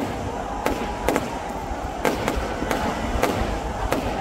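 Fireworks going off: an irregular run of sharp bangs and crackles, several a second.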